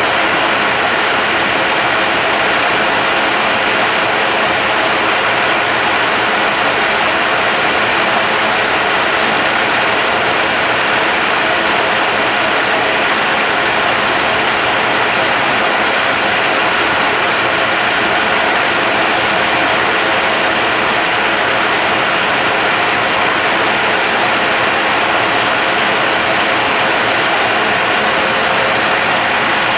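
Rebuilt Eaton Fuller RTLO-18913A 13-speed truck transmission spinning on a dyno test stand: a steady mechanical whir with an even gear whine, unchanging in speed and level.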